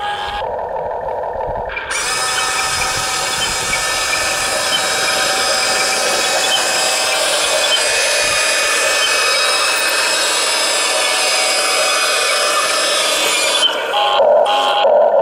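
Electric drive motors and gearboxes of a Huina radio-controlled excavator whining steadily as the model works. The sound changes briefly near the end.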